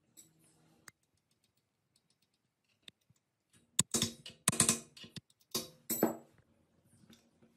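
Tools and metal engine parts being handled on a workbench: a short cluster of sharp clicks and scrapes between about four and six seconds in, some with a brief ring.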